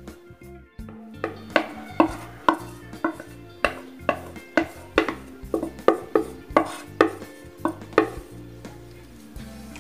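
A wooden spatula and a plate knocking against a non-stick kadai as cooked rice is scraped off the plate into the pan: a string of sharp clatters, roughly two a second, that stops about a second before the end.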